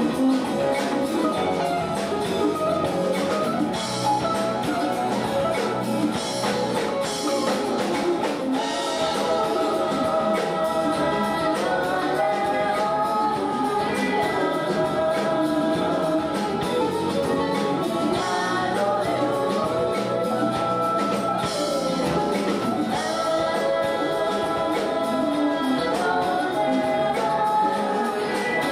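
A live pop band playing a song: electric guitar, bass, keyboards, drums and congas, with a lead vocalist and a backing vocalist singing together over it.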